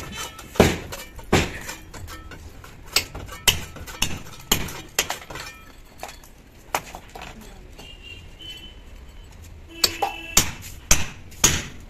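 A hammer striking a steel chisel, chipping the plaster and masonry from a wall in sharp, irregular blows, about one or two a second. The blows thin out for a few seconds past the middle, then come quicker near the end.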